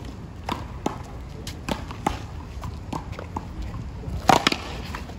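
Paddleball serve: a few light taps of the ball on the concrete court, then a loud smack of the paddle hitting the ball about four seconds in, with a second smack just after.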